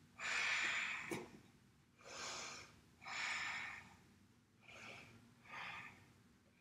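A woman breathing audibly while holding a standing yoga balance pose: one long breath, then four shorter breaths. A single sharp click comes about a second in.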